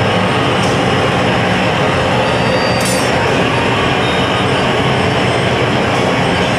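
Steady, loud roar of gas burners in a glassblowing hot shop, including a hand torch's flame played at close range on hot glass.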